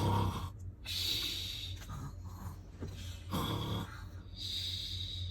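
A person imitating snoring by voice: several breathy, hissing snores, a second or two apart.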